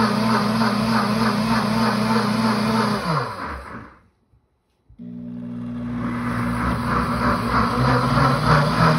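Pampered Chef cooking blender's motor running its heated self-clean cycle, churning the water in the jar. About three seconds in it winds down and stops; after about a second it starts up again and builds back to speed. This is the cycle's run-and-rest pattern.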